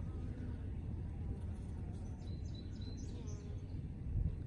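Outdoor background noise with a steady low rumble, and a few faint high bird chirps about two to three and a half seconds in.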